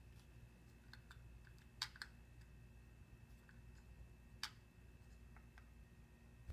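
Faint clicks and taps of a CAME 7500 three-axis camera gimbal being handled, tilted and turned. The sharpest clicks come about two seconds in and near four and a half seconds, over a faint steady hum and a thin high tone.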